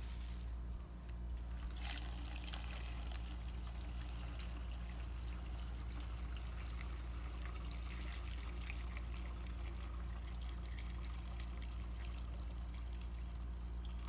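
Used resin-printing wash alcohol poured in a steady stream through a paper paint strainer in a funnel, trickling into a glass jar. A low steady hum runs underneath, and a brief knock comes about two seconds in.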